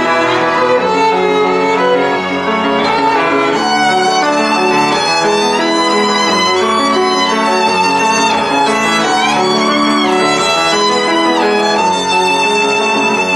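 Background music led by a violin playing a melody with sliding notes over sustained accompaniment.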